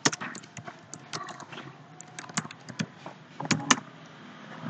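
Computer keyboard typing: scattered key clicks, with two louder clicks about three and a half seconds in.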